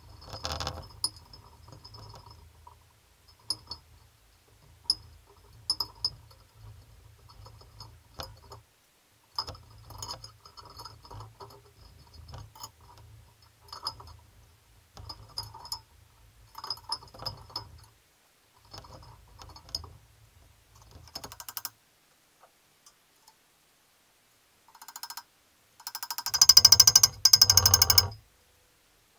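Hammer blows on a steel cam bearing installer, driving a cam bearing into a small-block Chevy engine block: sharp metallic taps with a high ringing, coming in clusters with pauses. A louder, rapid run of blows comes near the end.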